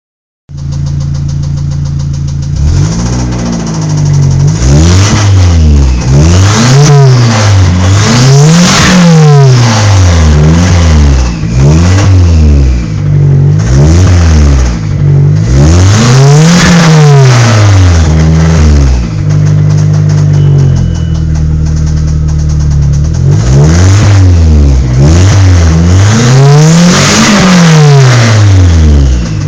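Car engine idling and being revved over and over, the pitch climbing and falling with each blip of the throttle, with a few seconds of plain idle in the middle before another run of revs.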